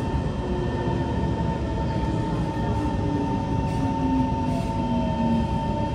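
Kawasaki C151 MRT train heard from inside the carriage as it slows into a station: a steady rumble with a constant whine, and a lower motor tone that steps down in pitch as the train brakes.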